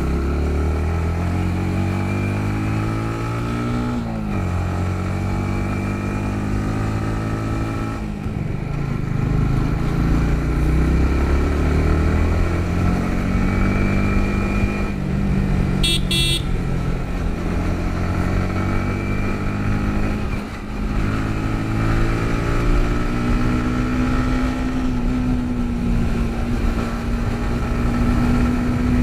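Yamaha MT-15's 155 cc single-cylinder engine heard on the move, its pitch climbing through the revs and dropping at each gear change, several times over. A short horn toot sounds about halfway through.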